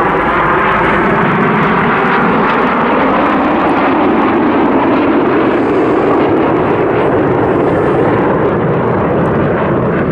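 Red Arrows BAE Hawk T1 jets flying past, their jet engines making a loud, steady roar with a slowly sweeping whoosh in the first few seconds.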